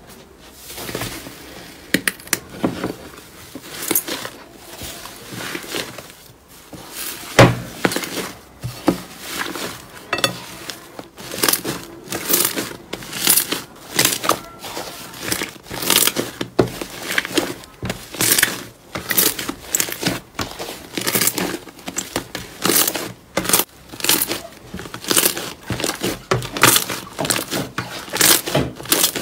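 Slime being squeezed and pressed by hand, giving a stream of sharp crackles and pops that come more often after the first ten seconds, about two or three a second.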